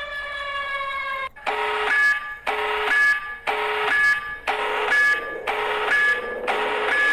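A wailing emergency siren slowly falling in pitch cuts off just over a second in. A pulsing alarm follows, sounding about once a second, six times.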